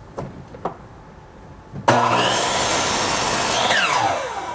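Electric miter saw switched on about two seconds in, its motor coming up to speed as the blade cuts through a 2x4. Near the end the motor winds down in a falling whine. A couple of light clicks come before it starts.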